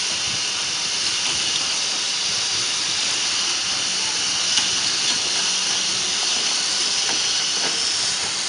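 Hot air seam sealing machine blowing a steady hiss of hot air, with a few faint ticks.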